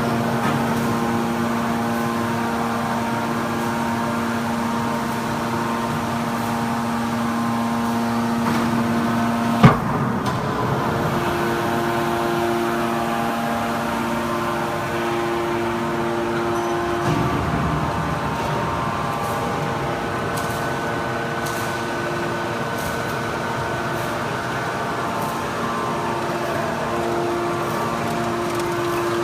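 Hydraulic scrap-metal baler running: a steady machine hum from its motor and hydraulic pump, whose pitch shifts a few times, with one sharp clank about ten seconds in.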